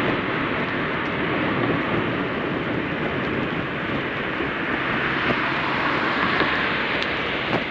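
Steady rushing noise of road traffic mixed with wind, with no single event standing out.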